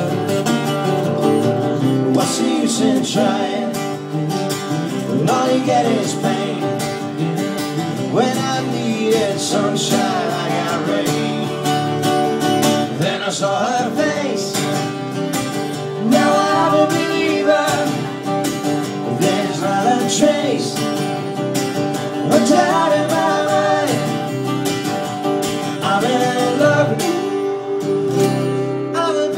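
Two acoustic guitars strummed live, with a man singing into a microphone over them.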